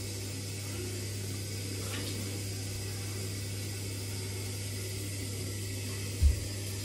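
Steady low hum in a kitchen, with a faint clink of dishes being handled at the sink about two seconds in and a single dull, low thump near the end.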